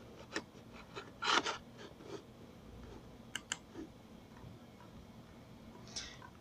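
Faint handling noise: a few soft rustles and small ticks, with two quick sharp clicks about three and a half seconds in.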